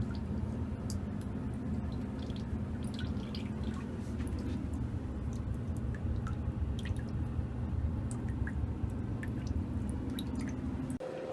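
Water dripping: scattered small drip ticks over a steady low hum.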